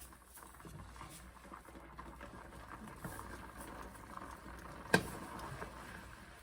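Faint scattered clicks and light handling noise, with one sharp knock about five seconds in.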